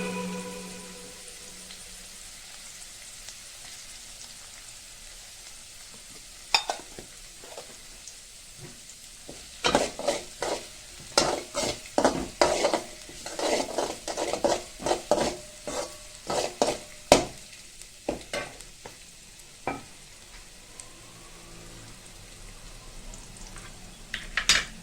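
Food frying in a pan with a faint, steady sizzle. From about ten seconds in, a utensil stirs and knocks against the pan in a quick run of clinks and scrapes lasting some eight seconds, with a few single knocks before and after.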